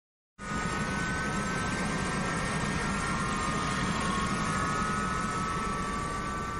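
A steady rushing drone with a low hum and a few thin whining tones that slowly fall in pitch. It starts suddenly about half a second in.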